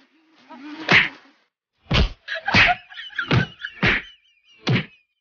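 Punch and slap blows landing in a brawl: a run of about six sharp whacks, roughly half a second to a second apart, coming faster after the first second.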